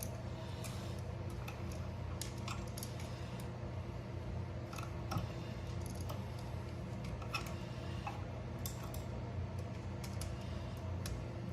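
Scattered small clicks and scrapes of hands handling copper electrical wires and a new wall outlet, at uneven intervals, over a steady low hum.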